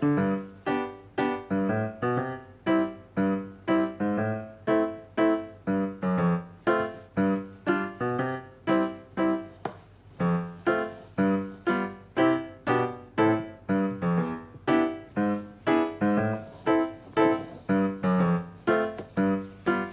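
Background piano music: a light melody of evenly paced notes, about two a second.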